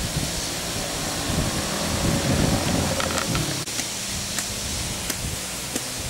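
Steady outdoor hiss of wind and rustling foliage, with a low rumble of wind on the microphone swelling about two seconds in and a few faint ticks near the middle.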